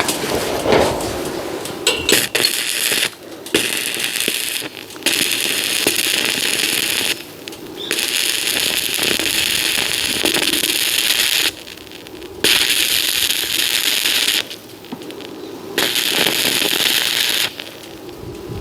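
Electric arc welding crackling in about six runs of one to four seconds each, with short pauses between the welds.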